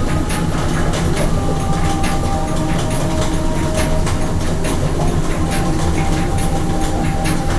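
A train rolling along the track: a steady low rumble with regular clicking, and faint thin steady tones above it.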